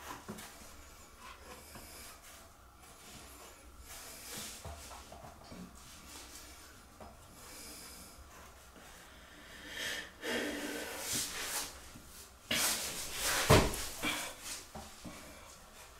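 Faint rustling and handling noises, with louder bursts of rubbing about ten and thirteen seconds in and one knock among them.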